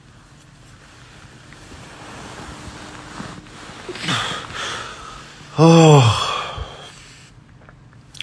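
A man yawning in bed: a long drawn-in breath, then a short loud groaning 'aah' about six seconds in that rises and falls in pitch, trailing off in a breathy exhale.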